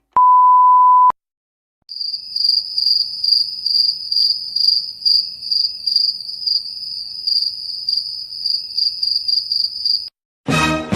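A loud, steady beep tone lasting about a second, then, after a short pause, crickets chirping in quick repeated pulses for about eight seconds.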